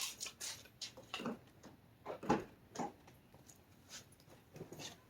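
Irregular light clicks and taps, a handful of them spread unevenly, with the loudest a little past two seconds in; no engine running yet.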